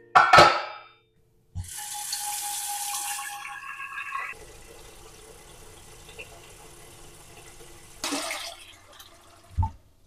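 Kitchen tap running into a stainless steel pot in the sink, filling it with water: loud at first, then a quieter steady pour. A metallic clatter of the pot in the sink comes at the start and a knock near the end.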